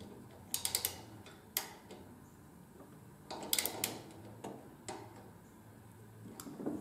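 Hand ratchet clicking in short quick runs, with single clicks between, as a light-mount bolt is tightened.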